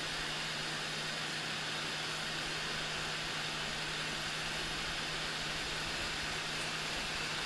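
Hot air rework station blowing a steady hiss of hot air with a low hum underneath, reflowing the solder on a surface-mount resistor.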